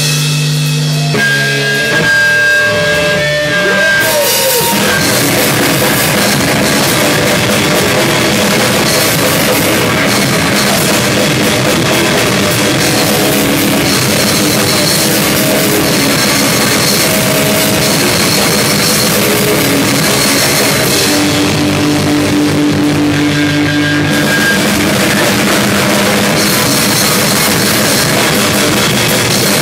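Live rock band playing loud: drum kit with cymbals and electric guitar. The first few seconds hold sustained guitar notes, then the drums come in fully. The cymbals drop out briefly about three-quarters of the way through, then return.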